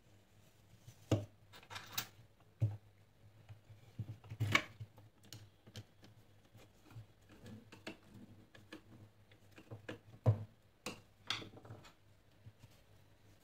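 Irregular light knocks and clicks of the wooden parts of an embroidery stand being handled and fitted together, with a screwdriver turning a metal bolt in the wood.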